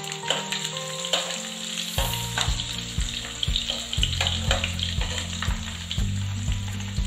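Chopped garlic sizzling in hot oil with mustard seeds, dried red chillies and curry leaves, stirred with a steel spoon that clicks against the pan now and then. Soft background music plays underneath, with a steady beat from about two seconds in.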